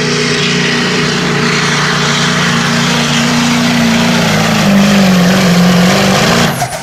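1997 Ford pickup's diesel engine running flat out as it drags a pulling sled, a steady loud drone that sags slightly in pitch about two-thirds through under the load, then cuts off suddenly near the end as the pull finishes.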